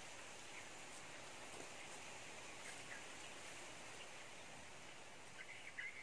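Faint outdoor ambience: a steady high insect hum with scattered faint bird chirps, and a quick run of short chirping notes near the end.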